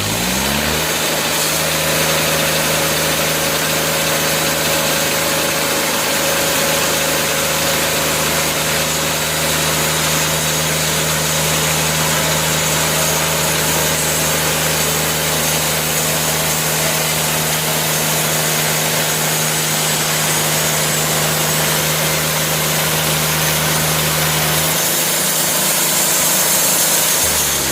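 Portable sawmill's engine revving up, then running at a steady high speed while the saw makes a cut along a log to square up one side, dropping back toward idle right at the end.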